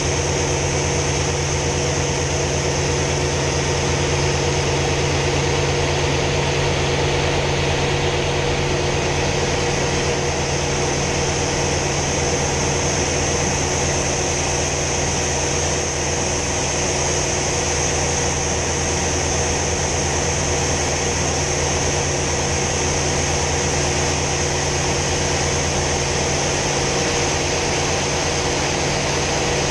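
Hawker Sea Fury T20's Bristol Centaurus radial engine running steadily in flight, heard from inside the cockpit together with a steady rush of air over the canopy.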